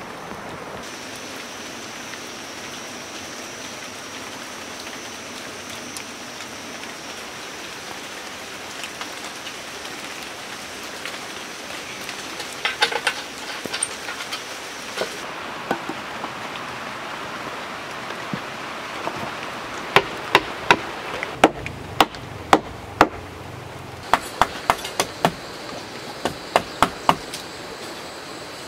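Steady outdoor hiss with a high steady whine through the first half. A few light clicks come around the middle. From about two-thirds of the way in, a run of sharp wooden knocks follows, roughly two a second, as wooden poles are struck while a pole frame is built.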